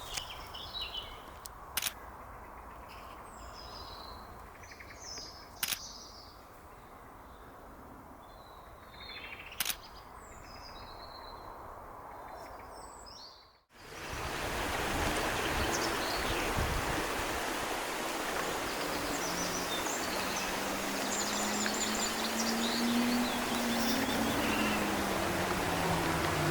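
Wild birds calling outdoors with short, repeated gliding calls, broken by three sharp clicks. About halfway through the sound cuts to a louder steady hiss with fainter bird calls, and a low hum rises and then falls near the end.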